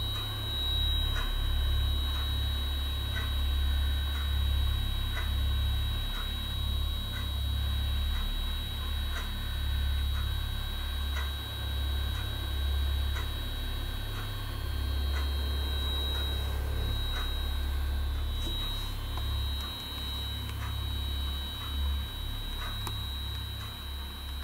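A steady low electrical hum that swells and dips unevenly, with a thin high whine over it and faint ticks about once a second.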